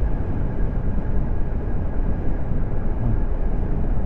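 Steady wind rush and tyre noise from a 2022 Zero SR electric motorcycle cruising at about 42 mph on rough, cracked pavement. It is a fluttering rumble with no engine note.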